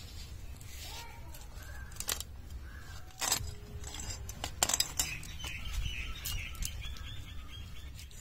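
Large kitchen knife cutting through a grass carp's fins and into its head: a series of short, sharp cuts and scrapes at irregular intervals.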